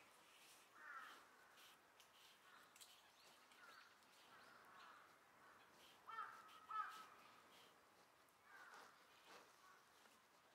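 Faint animal calls: a string of short calls, with two louder ones close together about six seconds in.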